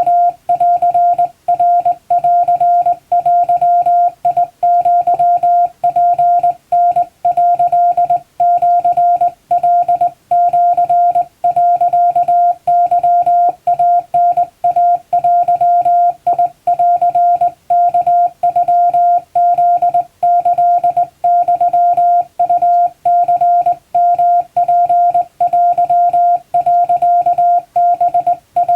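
Japanese wabun Morse code sent on a hand-operated straight key, heard as a single steady beep keyed on and off in short dots and longer dashes, with brief gaps between characters.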